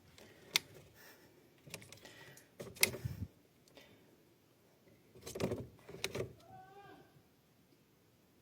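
A few faint, scattered knocks and clicks with a brief faint squeak in the middle, against a quiet room.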